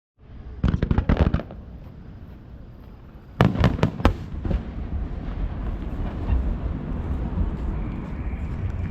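Aerial fireworks shells bursting in two quick volleys of sharp bangs, the first about half a second in and the second about three and a half seconds in, each a cluster of several cracks. A low lingering rumble follows.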